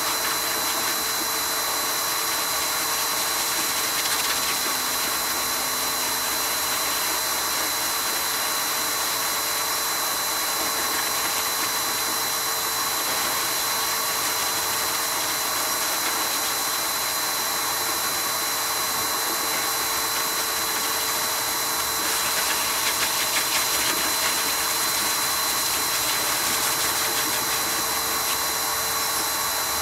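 High-velocity pet dryer running steadily, a rush of blown air with a steady high-pitched whine from its blower motor; it gets slightly louder for a few seconds about two-thirds of the way through.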